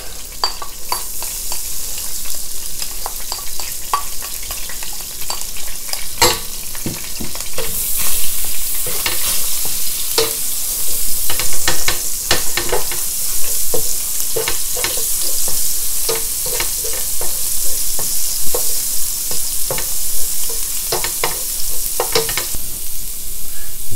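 Chopped garlic frying in hot vegetable oil in a stainless steel pan: a steady sizzle that grows louder about eight seconds in, with repeated clicks and scrapes of a spatula stirring it against the pan.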